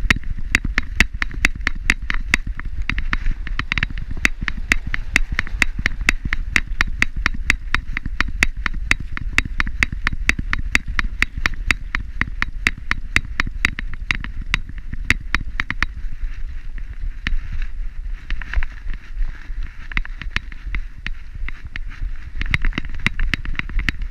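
A harness-mounted camera on a walking dog rattling and clicking in step with its stride, about four sharp clicks a second, thinning out after about 16 seconds, over a steady low rumble.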